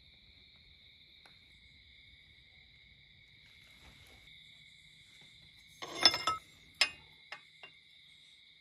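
Steady high insect trilling, crickets, throughout. About six seconds in comes a quick run of sharp metallic clinks and knocks, the loudest two close together, then two lighter taps.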